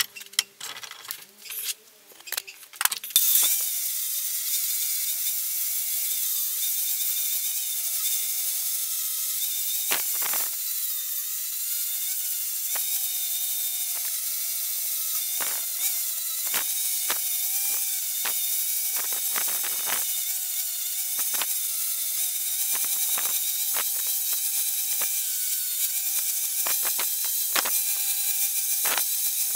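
Angle grinder with a flap disc grinding the steel face of a hammer head, shaping it into a rounding-hammer dome. It starts with a few seconds of choppy bursts, then settles into steady grinding with a constant motor whine.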